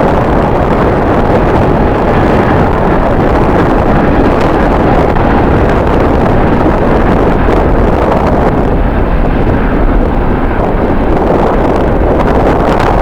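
Strong gusting wind buffeting the microphone, a loud, steady rumbling rush with no let-up.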